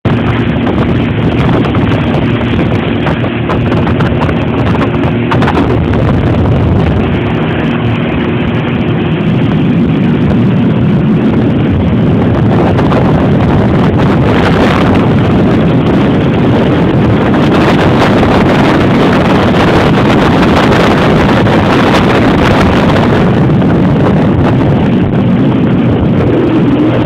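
A small motorboat's engine running steadily at speed, with wind buffeting the microphone. From about halfway the wind noise grows and partly covers the engine's hum.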